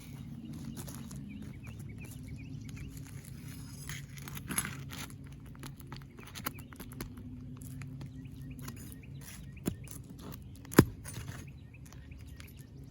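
Hand tools working on a 3-tab asphalt shingle roof: scattered scrapes and light taps of a hammer and flat bar, with one sharp knock near the end, over a steady low hum and faint bird chirps.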